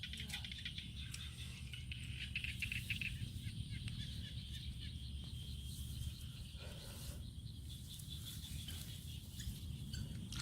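Outdoor ambience: birds chirping steadily, over a low steady hum and a few faint clicks.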